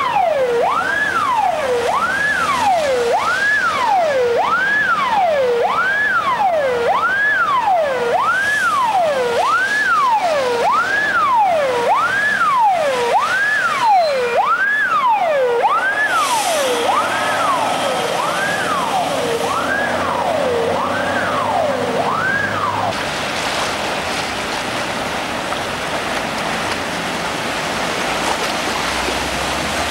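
An emergency vehicle's siren wails, sweeping up and down about once a second, over the rush of water churned up by vehicles wading through street flood water. The siren stops about 23 seconds in, leaving the steady wash of water as an ambulance van ploughs through the flood.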